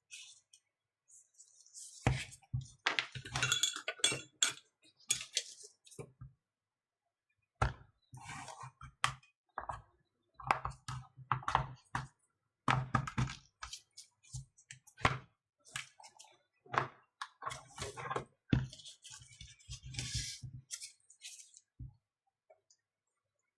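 Irregular plastic clicks, taps and knocks as the tablet's snap-fit back cover is pried open with a tool, some hits landing with a dull thud on the work surface. They come in clusters with a short pause a few seconds in.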